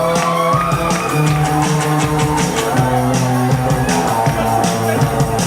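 Loud music with sustained notes over a steady, regular beat, rock in style.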